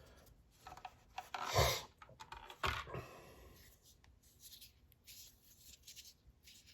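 Handling noise: a small object rubbed and scraped by hands, with a louder scraping rustle about a second and a half in and a short knock near three seconds, then faint scratchy rubbing.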